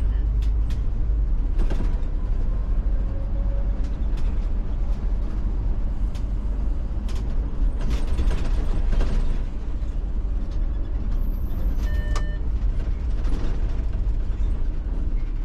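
Inside an Iveco Urbanway 12 city bus on the move: a steady low engine and road rumble with creaks and rattles of the bus body and fittings. A short electronic beep sounds about twelve seconds in.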